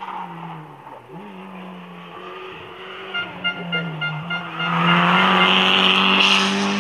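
Rally car engine coming into a hairpin, the revs dipping as it slows for the turn, then climbing hard as it accelerates out. It grows much louder over the last two seconds as it passes close by, then cuts off suddenly.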